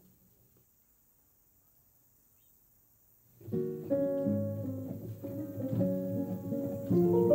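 Near silence for about three and a half seconds, then soundtrack music starts suddenly with plucked guitar notes.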